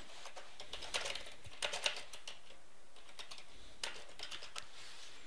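Typing on a computer keyboard: quick runs of key clicks in a few short bursts with pauses between.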